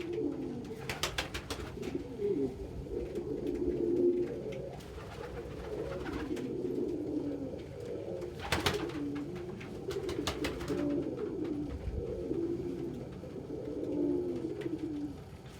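Domestic pigeons cooing continuously in a loft, low overlapping warbling coos, with a few sharp clicks or taps among them.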